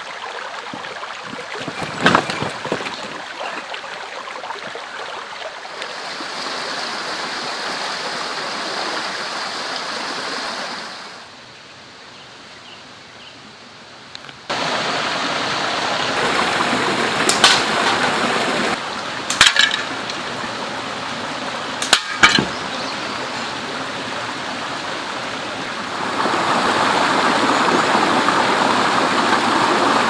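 Mountain stream running over rocks, its rush changing in level from shot to shot and loudest near the end beside small cascades. A few sharp cracks in the middle stretch come from a slingshot being shot.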